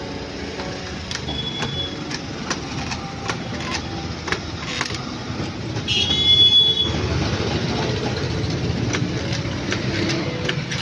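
Steady street-traffic rumble with scattered small clicks. About six seconds in, a loud high-pitched tone is held for about a second, and a shorter, fainter one sounds near the start.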